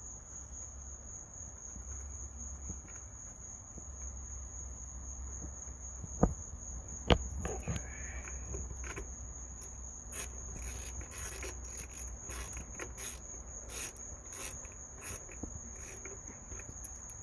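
Steady high-pitched insect trilling throughout, with two sharp clicks about six and seven seconds in and a run of fainter ticks and rustles later on.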